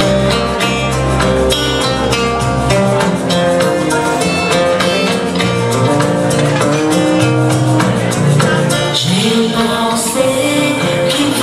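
Live music from an electronic keyboard: a slow ballad accompaniment with a steady beat and guitar-like plucked tones. Partway through, a woman's voice comes in singing over it through a PA.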